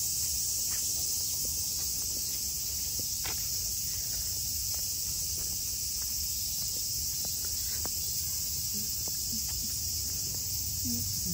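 Summer cicadas droning in the trees, a steady high sizzling chorus, with the faint knocks of footsteps on the path underneath.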